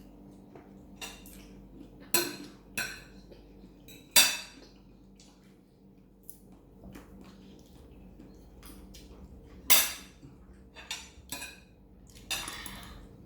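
Scattered clinks and knocks of cutlery and dishes, with a few louder strikes and quiet stretches between.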